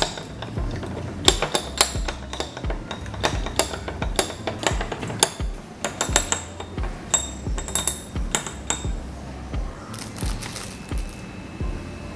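A stirring rod clinking repeatedly against a glass as melted candle wax and food colouring are stirred, in quick irregular taps of two or three a second, over background music.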